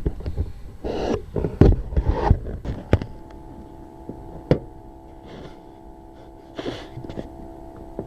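Irregular knocks and rattles with gusts of wind noise for about three seconds, then the steady drone of the tow plane's engine running, with a few sharp clicks.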